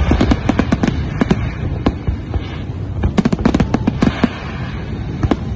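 Fireworks display: aerial shells bursting in quick succession, several sharp bangs a second overlapping over a steady low rumble, thickest about three seconds in.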